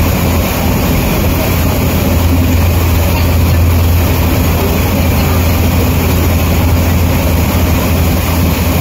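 Ferry's engine running steadily under way, a loud constant low drone with a broad rushing noise over it.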